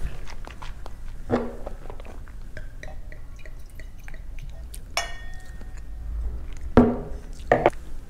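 Red wine being poured from a bottle into a wine glass, with small clicks of glass handling and a brief ringing clink about five seconds in. Two short vocal sounds come near the end.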